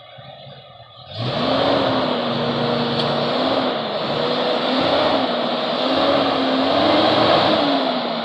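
Jeep Cherokee XJ engine revving hard under load in four-low as the Jeep climbs backwards up concrete steps. It comes in suddenly about a second in, and its pitch rises and falls as the driver works the throttle.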